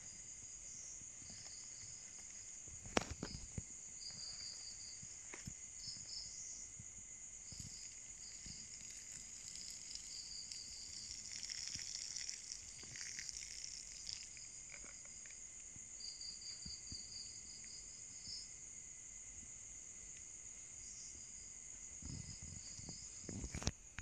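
Night insect chorus: a steady high buzz with crickets trilling in short repeated bursts, and one sharp click about three seconds in.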